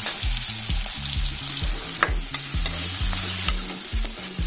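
Pork pieces and sliced onions sizzling in a black wok, frying without added oil in the pork's own fat, with a steel ladle stirring and scraping the pan in a few sharp clicks. Low background music runs underneath.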